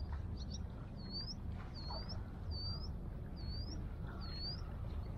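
A bird calling: a run of short whistled notes, each dipping then rising in pitch, about one every 0.8 s, after a few quick clustered notes at the start, over a low steady rumble.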